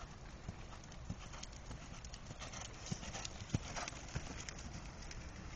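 Horse's hooves striking sand arena footing as it moves under a rider: a series of dull thuds, roughly one to two a second.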